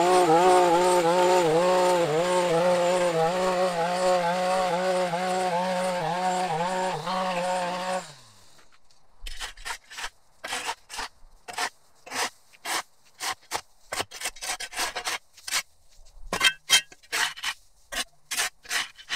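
Handheld gas string trimmer running at speed, its pitch wavering slightly, then shut off about eight seconds in, winding down with a short falling pitch. A shovel blade follows, scraping dirt and grass clippings off the concrete sidewalk edge in quick repeated strokes, about one or two a second.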